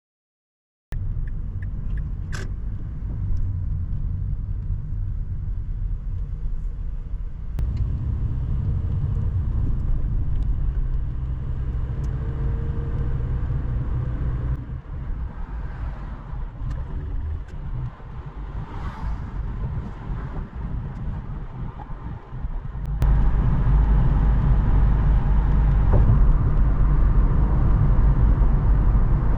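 Road traffic: a steady low rumble of car engines and tyres, changing abruptly a few times as the scene cuts, and louder over the last six seconds.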